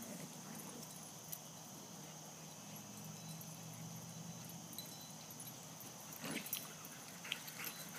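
Faint open-field ambience: a steady high insect trill over a low hum. A few short bursts of noise come in about six seconds in.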